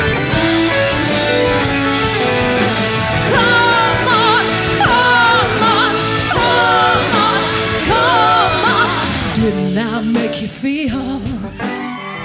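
Rock music with guitar and a wavering sung lead line, thinning out about ten seconds in as one song gives way to the next.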